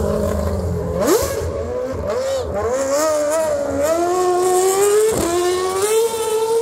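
Red Bull Formula 1 car's engine revving hard as it accelerates along the street, its pitch rising in steps through the gears, with a sharp rev rise about a second in and a sudden drop a little after five seconds.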